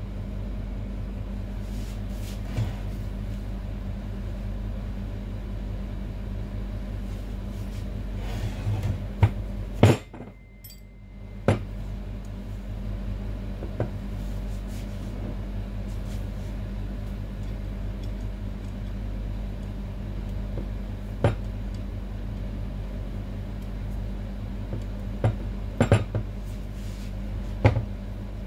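Metal hand tools clinking and knocking against the steel pump housing of a salon chair's hydraulic lift as it is taken apart: scattered sharp clanks, loudest about ten seconds in, over a steady low hum.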